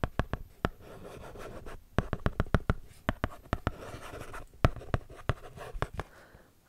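A stylus writing on a plastic writing tablet held close to the microphone: runs of sharp taps alternate with scratchy strokes.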